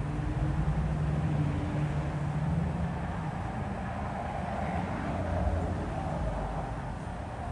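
42-inch Craftmade Decorative ceiling fan running: a steady rush of moving air with a low motor hum that fades out about halfway through.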